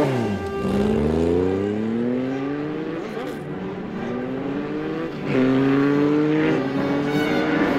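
Sport motorcycle engine revving, its pitch climbing in long rises about four times, louder from about five seconds in.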